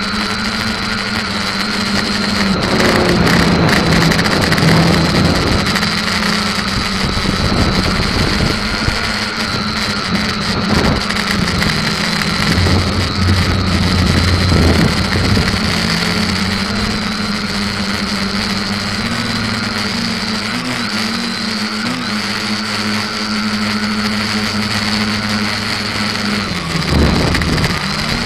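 SK450KK2 quadcopter's electric motors and propellers running in flight, a steady multi-tone hum over a rush of air, its pitch stepping up and down now and then as the throttle changes.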